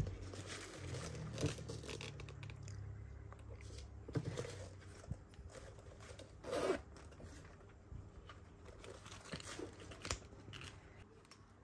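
Handling noise of a denim hobo bag being lifted and turned over in the hands on tissue paper: scattered rustles, fabric brushing and short scrapes, the loudest a little over halfway through.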